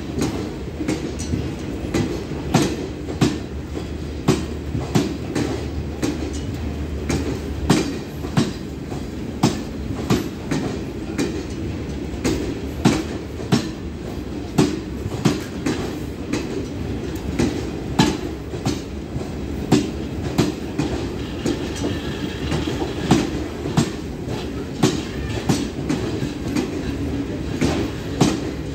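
Garib Rath Express passenger coaches passing slowly through a station, their wheels clicking over the rail joints in a steady clickety-clack, roughly a cluster of clicks every second, over a continuous low rumble of the rolling train.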